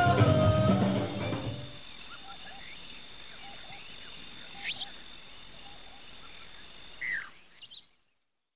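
Background music fading out over the first second or two, leaving a faint chorus of animal chirping: a high chirp repeating about one and a half times a second, with a few short rising calls, cutting off about eight seconds in.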